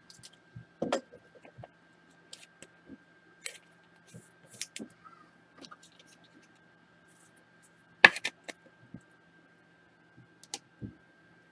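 Scattered light clicks and taps, then a sharp clatter about eight seconds in with a few quick smaller clicks after it: a die being rolled and bouncing on a tabletop. A faint steady hum runs underneath.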